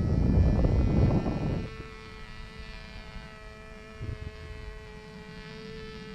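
Small RC powered glider's motor and propeller running with a steady buzzing hum in the air. A loud gust of wind buffets the microphone for the first second and a half or so, then dies away.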